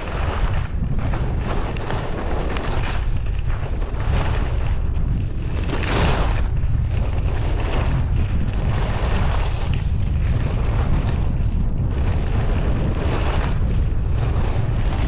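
Wind rushing over the microphone of a camera worn while skiing downhill, a heavy steady rumble. Over it the hiss of skis carving packed snow rises and falls with the turns, loudest about six seconds in.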